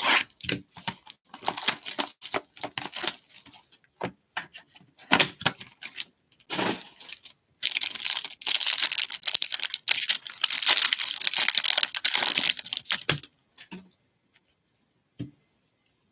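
Crisp clicks and taps as a trading-card box is handled and opened, then a dense stretch of crackling foil, about eight seconds in, as the foil card-pack wrapper is torn and peeled open. The crackling stops about three seconds before the end, leaving a few faint taps.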